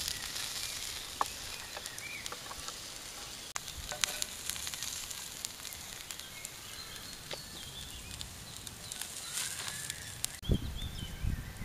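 Wild boar steak and chanterelle mushrooms sizzling on a hot clay plate over a campfire, with a few sharp clicks as they are turned with a wooden spatula and stick. After a cut near the end come a few low thuds of handling.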